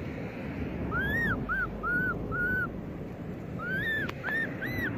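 Baby long-tailed macaque crying: short, high cries that rise and fall in pitch, in two runs of four with a pause between.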